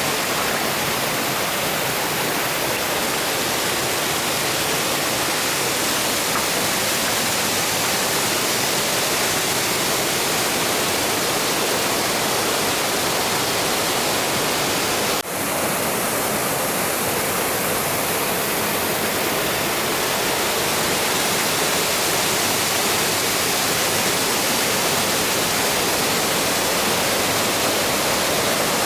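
Waterfall pouring into its plunge pool: a steady, dense rush of falling water. It dips briefly about halfway through.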